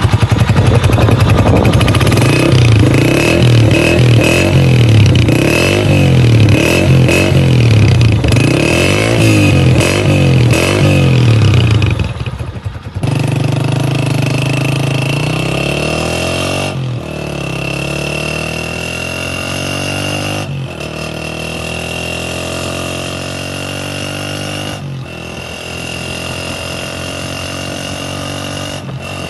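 Honda CG125's single-cylinder four-stroke engine breathing through an aftermarket Senkai silencer, revved up and down over and over for about twelve seconds. It then settles to a lower, steadier run, with brief dips every few seconds.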